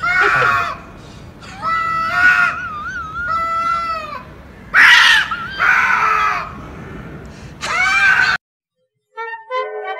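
Two cats yowling at each other in an aggressive standoff: a series of long, wavering calls, one after another. The yowling cuts off suddenly about eight seconds in, and brassy music starts near the end.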